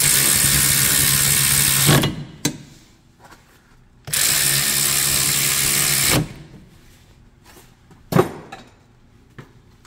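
A cordless electric ratchet runs twice for about two seconds each, driving the brake caliper bolts in tight. A single sharp knock comes near the end.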